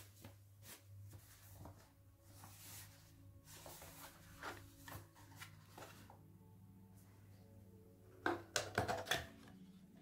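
A cardboard watch box being handled and opened by gloved hands: light paper rustling and taps, with a burst of louder cardboard scrapes and clicks about eight seconds in.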